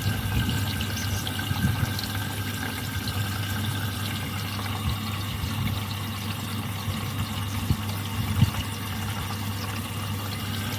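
Indesit EcoTime washing machine taking in water, a steady rush of water into the drum over a constant low hum, with a few faint knocks.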